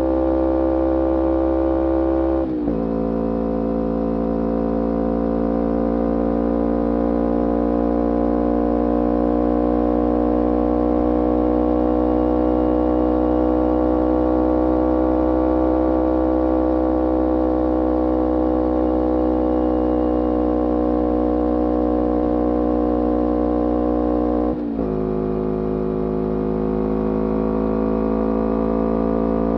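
2011 Kawasaki Ninja 250R's parallel-twin engine through a full Graves racing exhaust, running at a held speed. The exhaust note drops abruptly in pitch about two and a half seconds in, stays nearly steady for a long stretch, then drops again, climbs and drops once more near the end, like upshifts.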